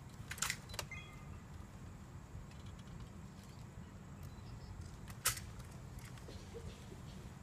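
Two sharp snaps from the ceremonial guards' drill movements, about half a second in and again about five seconds in, over a steady low outdoor rumble.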